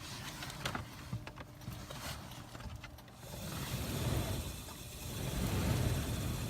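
Dodge Grand Caravan heater blower motor, out of the dash and lying on its side, starting up about three seconds in after a few light clicks and then running with a steady low hum that swells and eases. Its shaft has just been oiled to cure the fan's noise.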